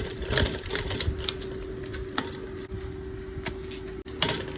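Keys jangling and clicking over a steady hum inside a car, with a sudden break near the end.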